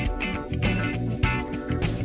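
Background music: an instrumental track led by guitar over bass, with a steady beat.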